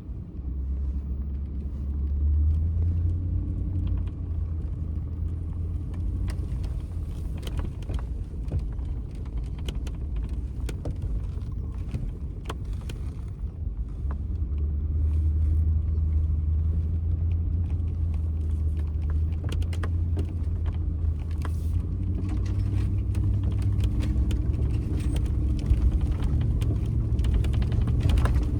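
Pickup truck engine running as the truck drives through deep snow, a steady low drone that gets louder about two seconds in and again about halfway through as it pulls harder. Scattered clicks and rattles run over it.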